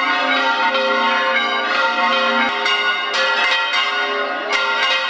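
Church bells pealing, many strikes ringing over one another in a dense, continuous clang. The sound cuts off suddenly at the end.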